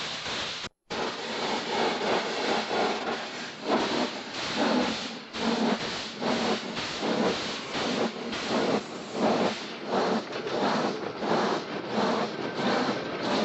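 Tram running on the rails: a steady rumbling noise that cuts out for an instant about a second in, then carries a regular pulse about twice a second.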